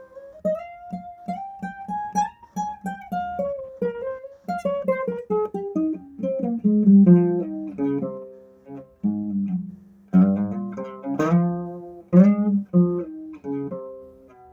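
Solo acoustic guitar playing a fast run of single plucked notes in flamenco picado style, the melody climbing and then falling. Near the end come a few loud strummed chords, and the last one rings out and fades.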